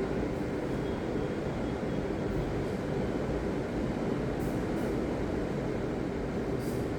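Ocean surf: a steady low rumble of waves, with no single crash standing out and a few brief faint hisses of washing water.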